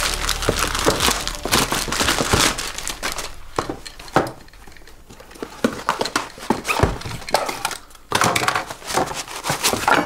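A cardboard parcel being opened with a utility knife: tape and cardboard cut and torn, with packaging crumpling and rustling in irregular bursts and a few knocks on the table.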